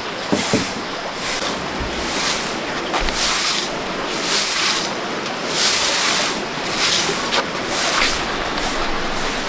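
Broom sweeping over the ground: repeated swishing strokes, about one to two a second.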